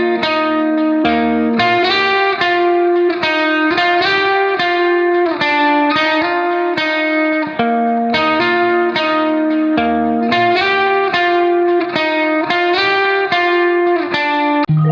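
Background music: a plucked guitar melody playing a steady run of notes.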